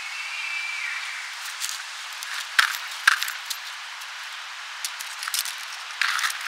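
Steady outdoor background hiss with a few short, sharp clicks and light rustles, and a faint high steady tone in the first second and a half.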